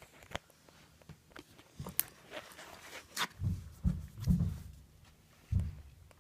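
Scattered soft thumps and a few sharp clicks of handling noise, irregular, with a cluster of thumps a few seconds in and one more near the end.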